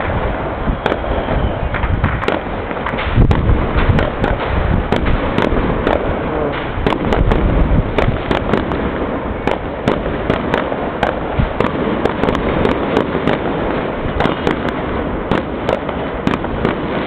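Fireworks going off in a continuous barrage: many sharp bangs and crackling pops, several a second, over a constant rumble of more distant explosions, heavier about three seconds in and again around seven to eight seconds.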